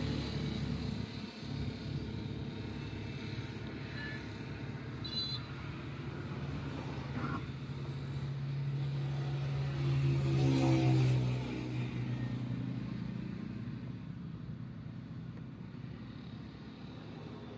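A motor vehicle's engine running, growing louder to a peak about ten seconds in, then fading away.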